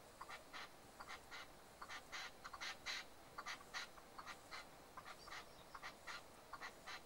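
Red-legged partridge calling: a quick run of short, harsh notes, about three a second, in uneven clusters.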